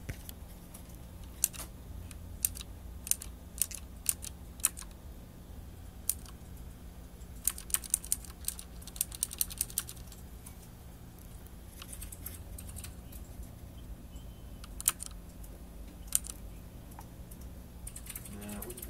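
Keystrokes on a Ducky Shine mechanical keyboard with clicky Cherry MX Blue switches. Scattered single key presses, then a short run of quick typing about seven to ten seconds in, and a couple more single presses later, over a steady low hum.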